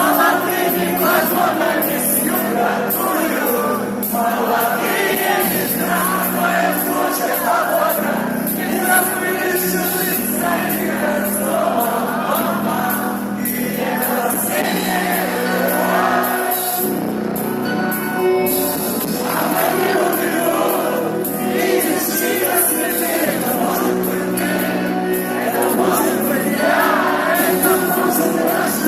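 A group of voices singing a song in unison over backing music.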